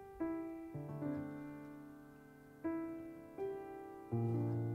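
Grand piano played solo: a slow series of chords, each struck and left to ring and fade, with a louder, deeper chord about four seconds in.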